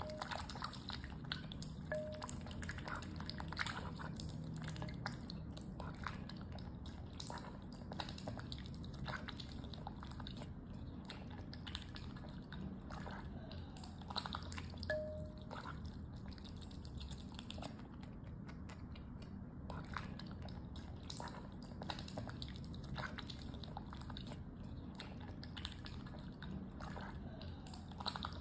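Domestic duck dabbling its bill through water in a glass bowl of chopped tomato and spinach as it feeds: a steady run of quick, irregular wet clicks, drips and slurps.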